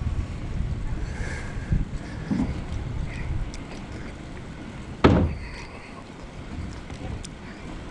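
Wind buffeting an action camera's microphone while riding a bike, an uneven low rumble that eases after about four seconds, with a single sharp thump about five seconds in.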